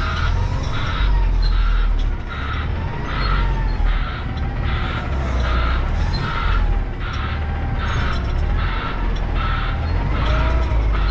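Semi truck reversing: a backup alarm pulsing about twice a second over the low rumble of the truck's diesel engine.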